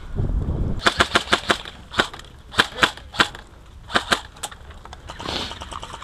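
Airsoft rifles firing: a rapid burst of about six sharp shots just under a second in, then scattered single shots and pairs.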